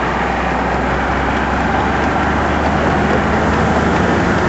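Engine and road noise of a moving car heard from inside it: a steady low hum under an even rush of tyre and wind noise.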